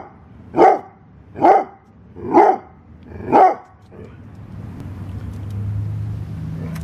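Basset hound barking at a black racer snake it has cornered: four short barks about a second apart, then the barking stops and a low hum fills the last few seconds.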